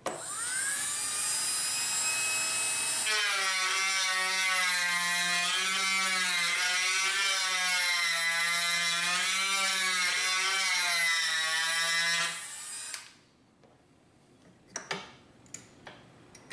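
Dremel rotary tool switched on and spinning up to a high whine, then running for about ten seconds with its pitch wavering up and down as it is pressed into the wooden stock, before it shuts off. A few light taps follow near the end.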